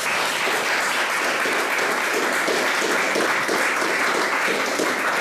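Audience applauding steadily, a dense clapping that starts sharply and holds even throughout.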